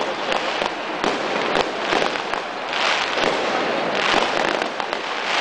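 Fireworks crackling in a dense, continuous stream of sharp pops, swelling louder about three and again about four seconds in.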